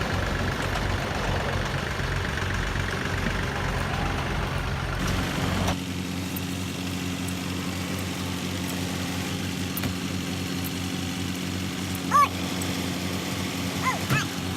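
Engine running steadily. About five seconds in, the sound shifts from a rougher, deeper running to a smooth, even idle hum. A brief high chirp comes near the end.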